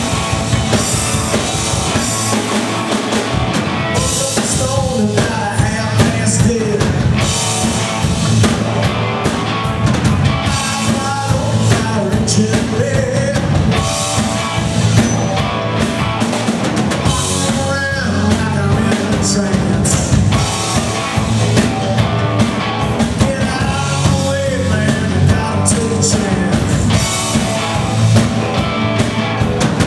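A live rock band playing: electric guitars, bass guitar and a drum kit keeping a steady beat.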